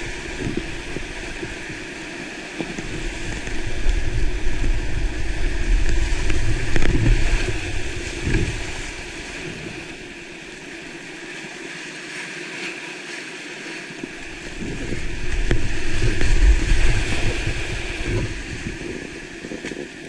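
Whitewater rapids rushing and splashing around a kayak's hull. A heavy low rumble on the microphone swells twice, from about three to eight seconds in and again from about fifteen to eighteen.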